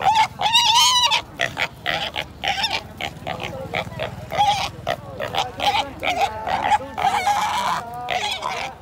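A small black piglet squealing loudly as it is pulled out of a sack by a hind leg, in distress. A long rising squeal comes first, then a string of short squeals, and another long squeal near the end.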